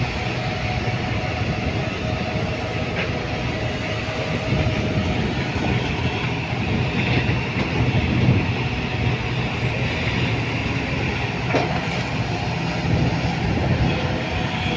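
Diesel engine of a Kobelco SK140 crawler excavator running steadily under load as it digs out tree roots, with a second excavator running nearby.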